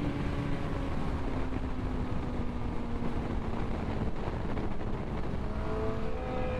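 Suzuki GSX-R sportbike's inline-four engine running at highway cruising speed under steady wind and road rush. The engine note sinks slowly, then a higher note rises near the end.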